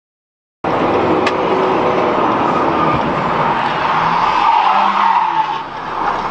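Moving car's road and engine noise as picked up by a dashcam, starting abruptly after a moment of silence, with a tire screech swelling about four to five seconds in.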